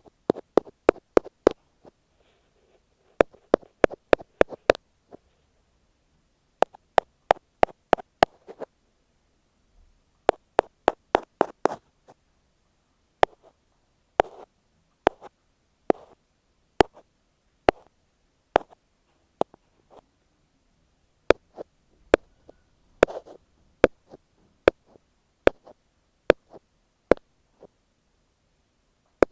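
An ear pick tapping directly on an earphone microphone, close and crisp. It starts with quick runs of several taps separated by short pauses. About halfway through it changes to slower single taps roughly one a second, with one denser cluster late on.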